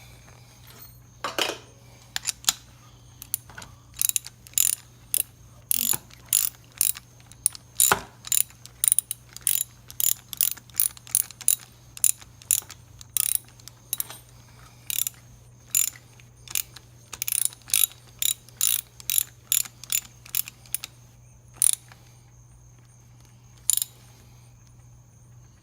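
Socket ratchet wrench clicking in short runs of strokes, with pauses between, as a new spark plug is run down and tightened through a socket extension into the Kawasaki Ninja 250R's cylinder head.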